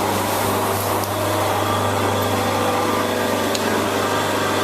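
A steady low machine hum over a constant hiss.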